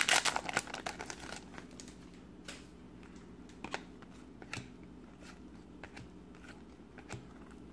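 Foil trading-card wrapper crinkling as it is torn open over the first second or so, then the glossy cards lightly slipping and tapping against each other as they are thumbed through, in scattered soft clicks.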